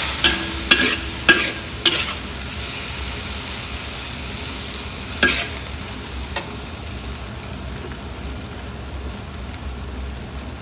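Spatula tossing and scraping pickled mustard greens and sliced meat in a wok: about four sharp knocks against the pan in the first two seconds and one more about five seconds in, over a steady sizzle of the stir-fry.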